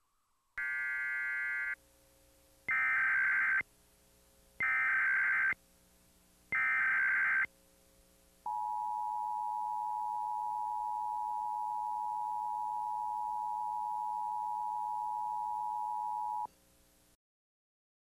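Emergency Alert System header tones: four short bursts of shrill digital data tones, about a second each, then the steady two-tone attention signal held for about eight seconds and cut off abruptly.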